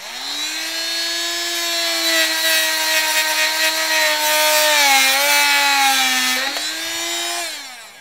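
Dremel oscillating multi-tool with a Rockwell universal fit blade running at speed and plunge-cutting into a wooden board: a steady buzzing whine that starts suddenly, rises a little in pitch at first, and sags in pitch twice in the second half before winding down and stopping.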